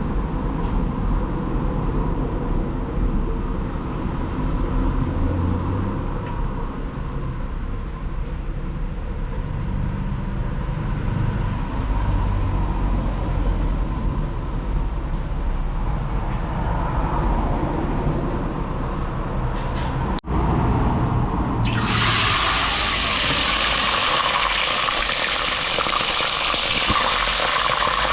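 Low rumbling noise, then a little under 22 seconds in, fish going into hot oil in a pot begins frying with a steady sizzle.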